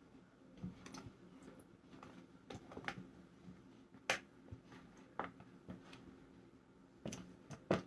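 Scattered faint clicks and light taps, about eight in all, from small objects being handled, such as a spoon and plastic containers of slime ingredients.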